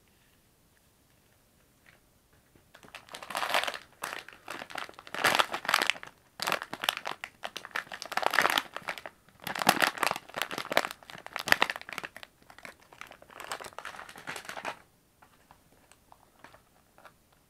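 Plastic snack packaging crinkling in irregular bursts as it is handled, starting about three seconds in and dying down to faint rustles near the end.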